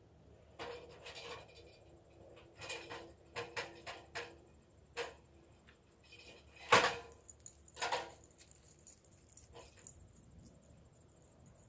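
A dog close to the microphone, sniffing and snuffling in irregular short bursts, the loudest about seven seconds in.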